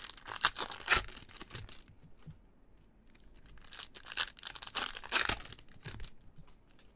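Trading cards and plastic card holders handled by gloved hands: crinkling, scraping rustles with sharp little clicks. They come in two spells, the second starting about halfway through.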